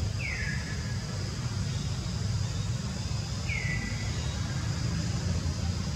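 Outdoor ambience: a steady low rumble, with a bird giving a short call that falls in pitch twice, about three seconds apart.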